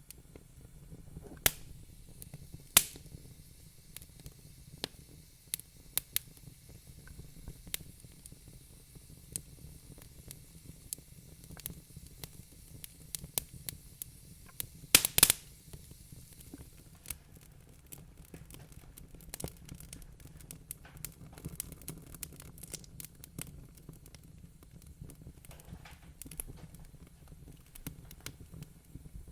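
Wood fire crackling in a fireplace: irregular sharp pops and snaps over a low steady rumble. A few pops stand out louder, two near the start and a quick cluster about halfway through.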